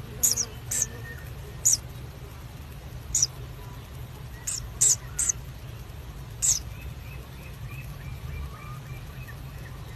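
Kingfisher calls in the nest burrow: short, very high squeaks, about eight of them scattered through the first six or seven seconds, then a faint quick run of softer peeps near the end, over a steady low hum.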